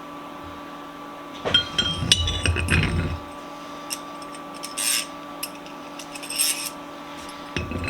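Metal vise parts clinking and clattering as they are handled and fitted together. There is a burst of knocks and clatter about a second and a half in, then two short, bright metallic clinks later on.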